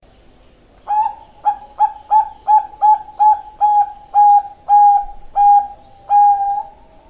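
Zebra dove (Bangkok-line perkutut) cooing: starting about a second in, a run of about a dozen notes on one pitch, quick and clipped at first, then longer and more spaced, ending on a long drawn-out coo.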